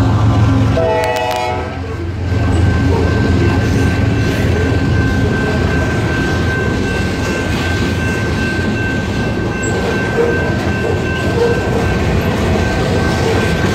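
CSX GE ES44AC-H diesel locomotives run past and fade out, with a short blast of the train horn's chord lasting about a second, about a second in. Then the freight cars of the manifest roll through the crossing, wheels clicking over the rail joints, while the crossing's General Signal type-2 electronic bell rings steadily.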